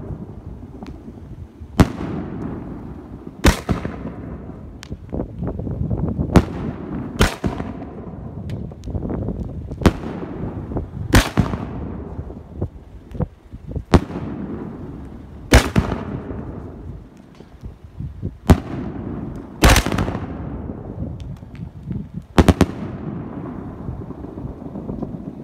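A 3-inch 9-shot willow firework cake firing: sharp booms as its shells launch and burst, one every second or two and sometimes in close pairs, each followed by a long rolling echo.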